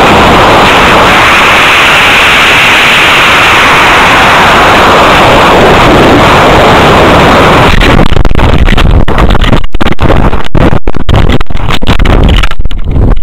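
Loud, steady rushing noise of a two-stage model rocket's black-powder motor burn and the air streaming past it, picked up by a camera riding on the rocket. From about eight seconds in, as the rocket slows toward apogee, it breaks into choppy, irregular gusts of wind buffeting the microphone.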